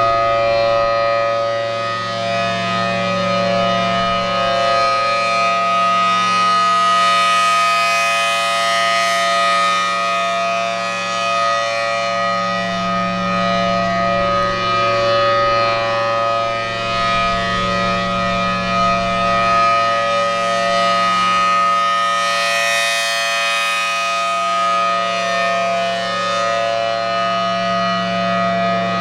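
Federal Signal Thunderbolt 1000T outdoor warning siren sounding a full-alert steady tone: a loud, unwavering pitch whose loudness swells and fades slowly as the rotating head turns, peaking about a third of the way in and again near the end.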